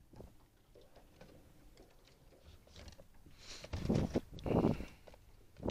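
Faint scattered clicks, then about three and a half seconds in a cluster of loud scuffing knocks, with another near the end: handling and movement noise in a small fishing boat.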